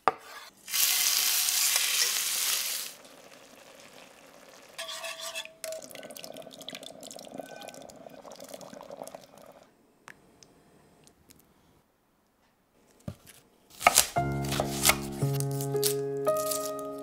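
A sequence of kitchen sounds: food sizzling loudly in a hot pan for about two seconds, then a ladle stirring a creamy soup in an enamelled cast-iron pot. Near the end gentle music with held notes comes in over the dry rustle of shallot skins being peeled.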